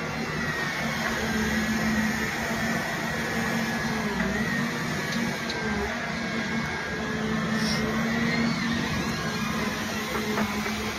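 Volvo wheeled excavator's diesel engine and hydraulics running steadily, with a low hum under a high hydraulic whine that wavers up and down in pitch as the boom and grapple move.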